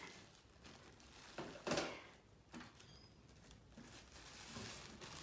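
Faint rustling of plastic packaging and light handling knocks as a newly unboxed hot water dispenser and its parts are moved about, with a couple of sharper brief knocks about a second and a half in.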